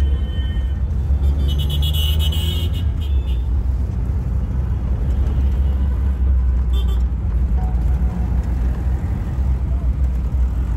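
Inside a moving minibus: steady low engine and road rumble in city traffic, with a car horn honking from about one and a half to three seconds in.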